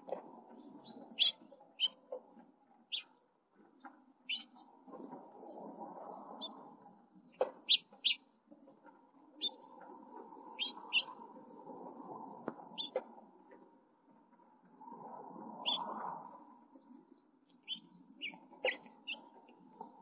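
Short high-pitched cheeps of house finch nestlings begging at the nest while the male feeds them, coming irregularly, one to a few at a time. Under them is a low rustling murmur that swells three times.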